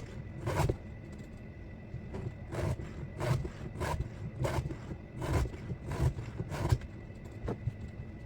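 Hand file rasping across a chainsaw chain's cutters in a series of short strokes, about one every two-thirds of a second, as the chain is sharpened.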